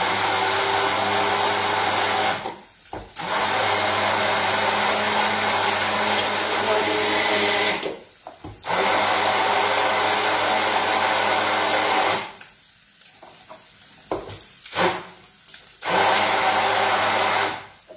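Handheld immersion blender running in four bursts of a few seconds each, puréeing a thick pistachio pesto. The motor whine cuts out between runs, and there are a few light knocks during the longer pause.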